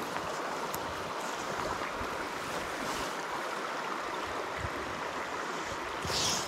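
A small stream's current rushing steadily.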